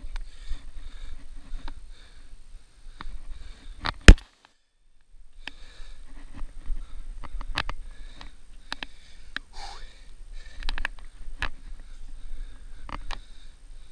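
A climber's breathing with sharp knocks of hands and shoes on a steel lattice tower's ladder, over a low wind rumble on the microphone. About four seconds in comes one loud knock, and the sound then cuts out for nearly a second.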